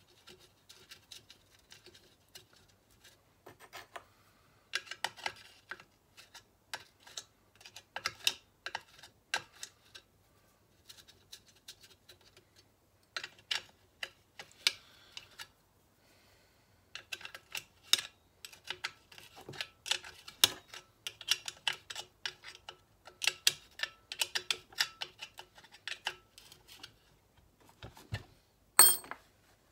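Hand ratchet or spanner clicking in rapid bursts as bolts are run in and tightened on a small two-stroke engine's casing, with short pauses between bursts. A single loud sharp metal clank near the end.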